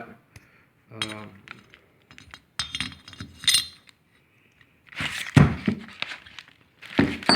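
Small metal engine-kit parts clinking and being handled: a scatter of light clinks and taps, then louder clatter and handling noise in the last couple of seconds.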